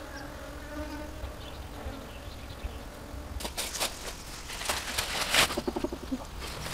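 A bee buzzing around tree blossoms, a steady drone, for the first three seconds or so. It gives way to irregular crunching and rustling of footsteps through dry fallen leaves.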